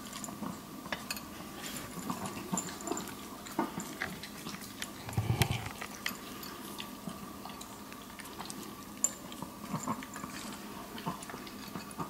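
Maltese dogs eating dry kibble: crunching and a scattering of small clicks as teeth and muzzles knock against clear food bowls in a raised feeding stand, with a louder clatter about five seconds in.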